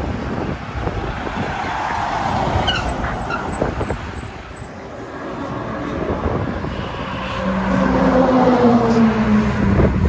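Road vehicles passing at highway speed, one after another. The second carries a strong engine drone that is loudest near the end and drops slightly in pitch as it goes by.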